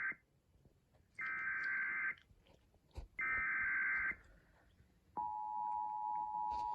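Emergency Alert System tornado warning: the SAME header's digital data bursts, with the tail of one just at the start and two more about a second long each, a second apart. About five seconds in, the EAS two-tone attention signal starts, a steady dual tone.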